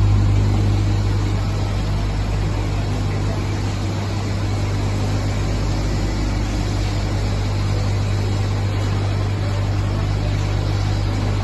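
Industrial microwave drying machine running, drying black soldier fly larvae: a steady low electrical hum under an even rush of fan and machine noise, unchanging throughout.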